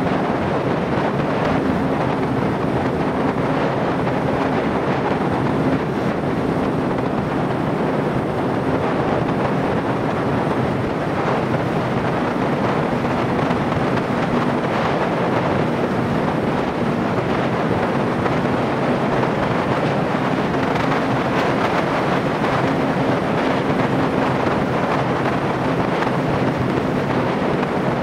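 Wind rushing over the microphone of a motorcycle riding at steady highway speed, with a faint steady engine hum underneath.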